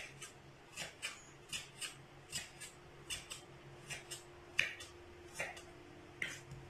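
Kitchen knife chopping through watermelon rind onto a wooden cutting board: a series of sharp, separate chops, about one or two a second at an uneven pace, as the rind is diced into small square cubes.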